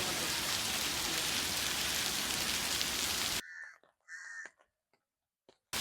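Steady hiss of outdoor noise, like rain, that cuts off suddenly about three and a half seconds in; in the near silence that follows come two short bird calls, a crow-like caw.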